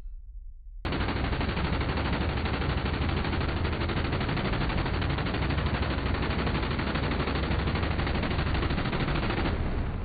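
Minigun (multi-barrel rotary machine gun) firing one long continuous burst, starting suddenly about a second in, the shots too fast to separate into single reports. The burst stops shortly before the end and the sound dies away.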